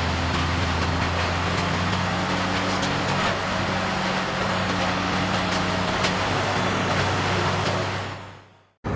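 Large engine-driven wood-processing machine running steadily, a deep engine hum under the noise of the machinery; the sound fades away and cuts to silence near the end.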